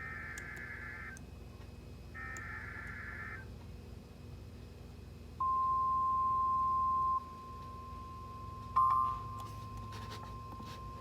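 Emergency Alert System SAME header: two bursts of warbling digital data about a second long, the last of a set of three. About two seconds later a steady attention tone of about 1050 Hz comes in, loud for under two seconds, then carries on faintly. A short loud burst sounds about nine seconds in.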